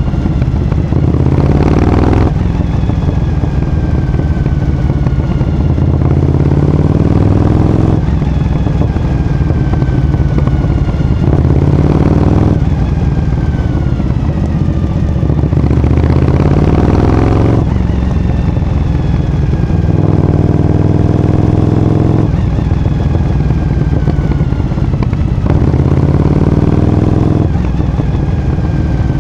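Suzuki TL1000S's 90-degree V-twin through a Striker carbon aftermarket exhaust, heard from on board while riding. The throttle is opened about six times, the engine rising in pitch each time, then falling away as the throttle is closed between them.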